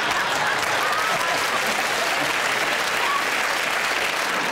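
Studio audience applauding, a steady, even clapping with a few faint voices in it.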